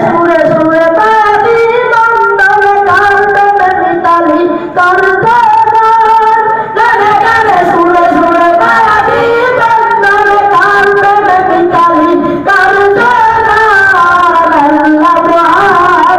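A boy's unbroken voice singing a Bengali song through a microphone, a continuous melody with no instruments and only short breaks for breath.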